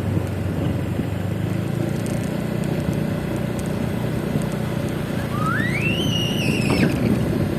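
Scooter engine running steadily while riding, mixed with road and wind noise. Between about five and seven seconds in, a high whistle-like tone rises, holds briefly and then falls away.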